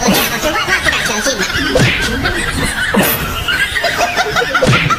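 People laughing and snickering throughout, several voices overlapping.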